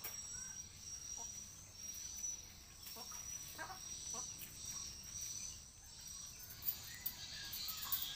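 Outdoor insect and bird sounds: a high-pitched insect trill repeating in long phrases, with a few short bird chirps, and two sharp ticks near the end.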